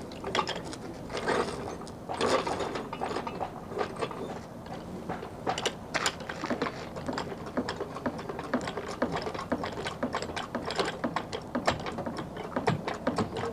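Ratchet wrench clicking in quick, uneven runs as nuts on a car's front suspension are tightened.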